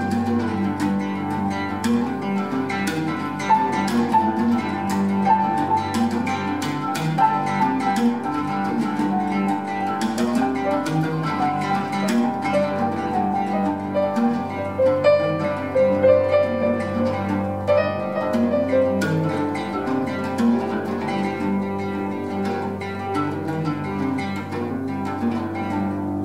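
Oud plucked in quick runs of notes together with a piano in a live improvised duet, with a steady low hum underneath.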